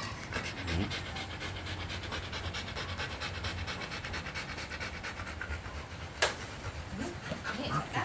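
Siberian husky panting fast and steadily, winded from running on a treadmill. A single sharp click sounds about six seconds in.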